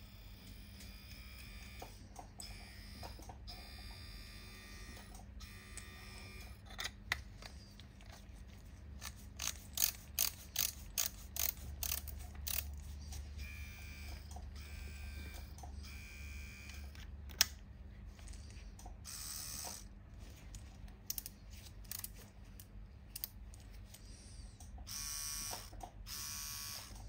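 Plastic parts of a 3D-printed tattoo pen being handled and fitted together: scattered clicks and short scraping bursts, with a run of about two clicks a second for a few seconds near the middle.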